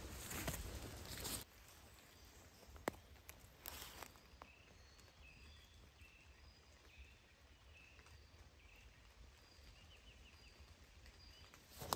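Footsteps rustling through leafy forest undergrowth for about the first second and a half. Then quiet woodland, with a couple of faint clicks and distant birds giving short, scattered chirps, ending in a brief quick trill.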